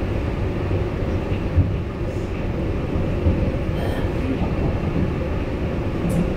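Inside a Hamburg U-Bahn DT4 metro car running along the line: a steady rumble of wheels on rails and running gear, with a few faint clicks.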